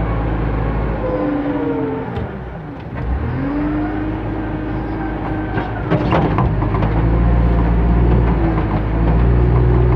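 JCB 3CX backhoe loader's four-cylinder diesel engine working, heard from the cab: the revs dip about two seconds in and build back up, and a few sharp metallic clanks come around six seconds in.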